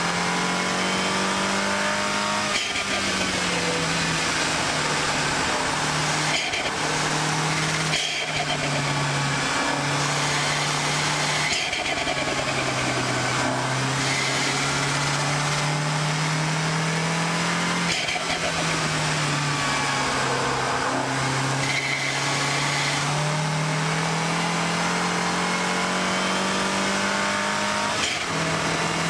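MINI Cooper S turbocharged 2.0-litre four-cylinder engine running hard at track speed. Its note climbs steadily, then drops sharply several times as the car shifts and lifts off between corners, over a constant rush of road and wind noise.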